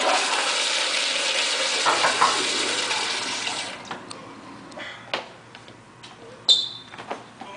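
Toilet flushing: a loud, even rush of water that stops about three and a half seconds in. After it come a few light steps and knocks on a hard floor, and a short high squeak near the end.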